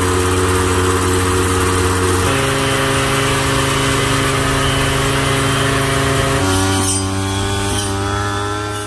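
Brush cutter engine running steadily, driving a belt-driven high-pressure sprayer pump and cutting grass. The engine note steps up in pitch about two seconds in and drops back about six and a half seconds in.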